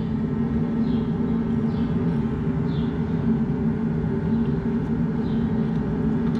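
Shop heater running with a steady, even hum.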